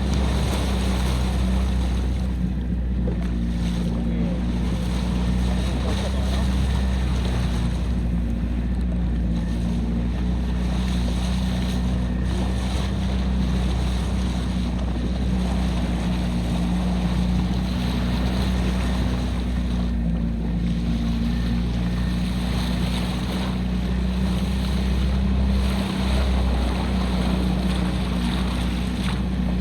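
Wind buffeting the microphone and water rushing past a small boat, steady and loud, over a low continuous hum. There is a brief low knock about 26 seconds in.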